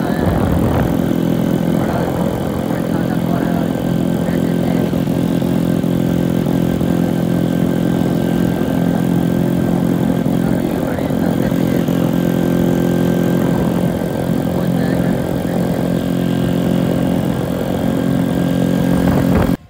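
Small single-cylinder motorcycle engine running at a steady cruising speed while riding, with wind and road noise rushing over the microphone.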